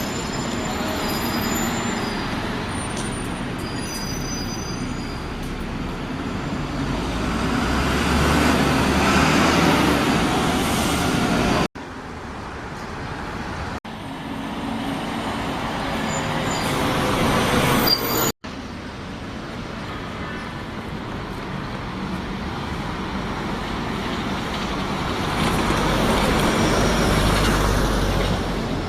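Buses running past in street traffic, engines and tyres growing louder as each one draws near. The sound is three short clips joined by sudden cuts.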